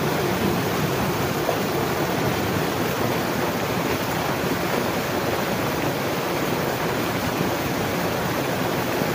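Steady rushing of flowing water in a concrete canal, an even hiss with no breaks.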